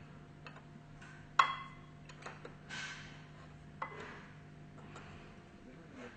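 Metal-on-metal clinks and taps from tools and fittings being handled during pump reassembly. One sharp ringing clink comes about a second and a half in and a second near four seconds, with a short scrape between them, over a steady low hum.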